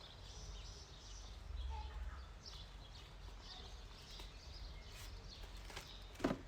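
Faint birds chirping over a low background rumble, with a single sharp knock shortly before the end.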